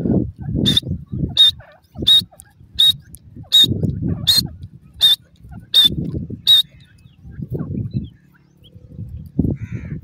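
Grey francolin giving a run of nine short, sharp calls, evenly spaced about three-quarters of a second apart, then falling silent. A patchy low rumble sounds underneath.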